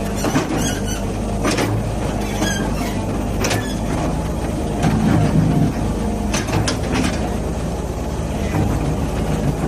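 Excavator's diesel engine running steadily, with several sharp metallic knocks and clanks from the machine.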